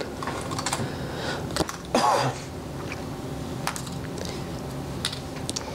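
A person's brief cough about two seconds in, among a few light clicks and taps of playing cards being handled on the table.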